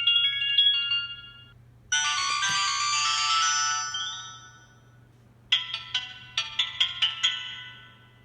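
Short synthesized ringtone melodies played through a Kyocera Cadence flip phone's speaker: Sanyo Katana ringtones converted to MIDI, one after another. A tune fades out about a second in, a bright chiming one rings from about two seconds to four, and a run of short plucked notes follows from about five and a half seconds, over a faint steady hum.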